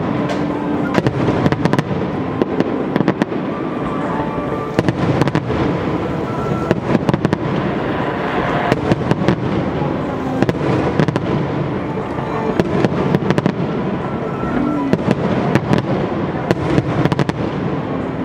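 Fireworks display: aerial shells bursting in a dense, continuous series of bangs and crackles, several a second.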